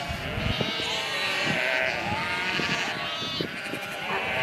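A herd of goats bleating, many calls overlapping one another.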